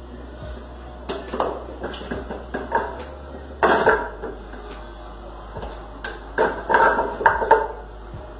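Diced raw carrot tipped from a bowl into a blender jar, the pieces clattering against the jar and bowl in three bursts of knocks, the last about six seconds in.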